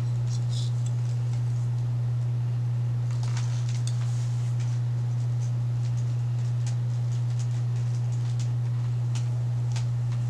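A steady low hum, with faint clicks and rustles from hair being sectioned and wrapped on a clamp curling iron.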